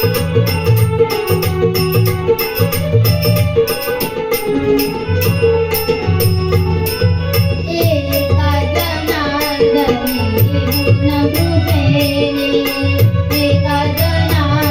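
Marathi gavlan folk music, an instrumental passage between sung lines. Drums and jingling percussion keep a steady quick beat under a melody line, which starts to wind up and down from about eight seconds in.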